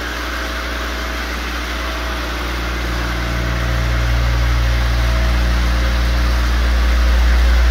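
Square orbital floor machine running on bare hardwood while screening the floor: a steady electric-motor hum with a strong low drone, growing slowly louder.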